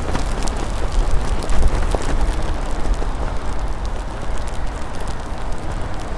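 Wind rumbling on a moving microphone with an even rain hiss and scattered ticks of raindrops striking it.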